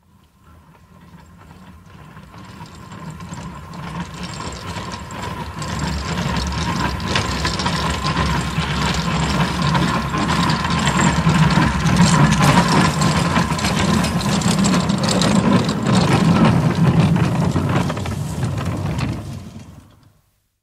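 A platelayer's trolley (a small rail trolley used by track workers) running along the rails and approaching: a steady low drone with many clicks and rattles, growing louder over the first twelve seconds, holding loud, then fading out quickly near the end.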